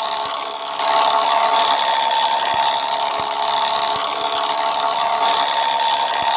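Bus air horn sounding one long steady note, the horn sound known as 'janda ngorok'; it grows louder about a second in.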